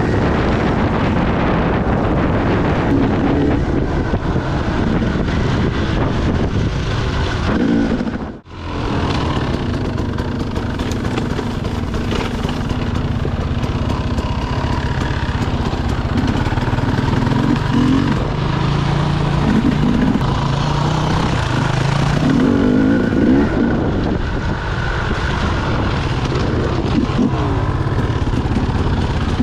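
Dirt bike engine running as it is ridden along a rough trail, its revs rising and falling. The sound cuts out briefly about eight seconds in.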